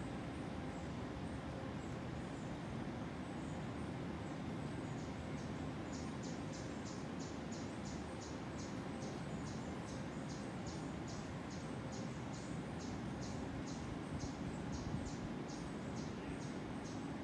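Rainforest ambience: a steady background hiss, joined about five seconds in by a high, rapid chirping call repeating evenly about three times a second.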